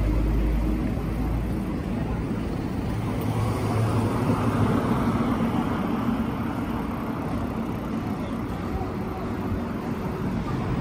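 Road traffic on a city street: cars going by, with a heavier low engine rumble fading away in the first second or two.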